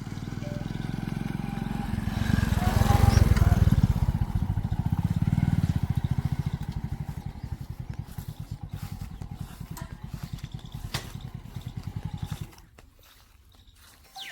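Tractor diesel engine running with an even, fast pulsing beat. It is loudest about three seconds in, eases off, then cuts off suddenly near the end.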